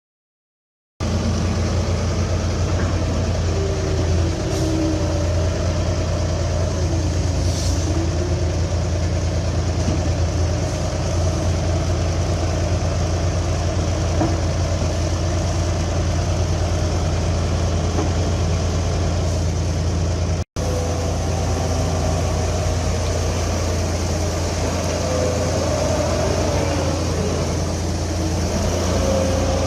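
Diesel engine of a Terex TW110 wheeled excavator running steadily with a deep low hum, starting about a second in and breaking off briefly about two-thirds of the way through.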